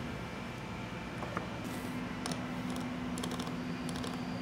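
Scattered light metallic clicks and taps from a hand grease gun and steel angular contact bearings being handled while grease is applied, over a steady background hum.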